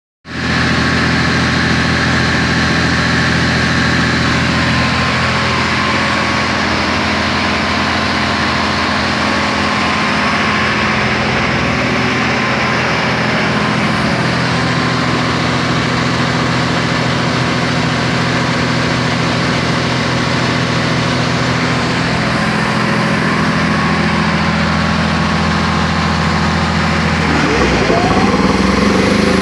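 Reconditioned Hamworthy V250 main air compressor running steadily on test, a loud, even mechanical drone. Near the end a rising whine joins in and the sound gets slightly louder.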